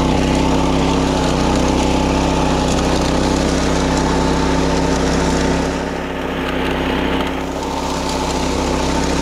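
Wing mower's small petrol engine running steadily while cutting grass. Its note dips briefly about six seconds in, then picks up again.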